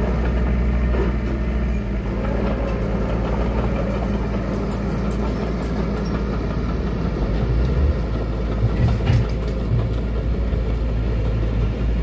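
Diesel engine of heavy earthmoving machinery running steadily, with a few brief knocks about halfway through and around nine seconds in.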